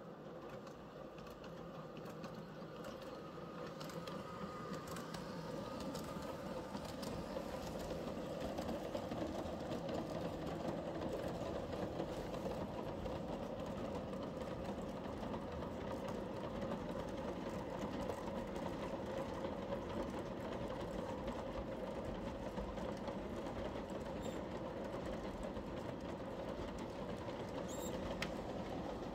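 G-scale model train, an NS 1844 electric locomotive hauling sixteen freight wagons, running on brass track: a steady motor-and-wheel hum and rumble with light clicks from the rails. It grows louder over the first several seconds as the train comes closer, then holds steady as the wagons roll past.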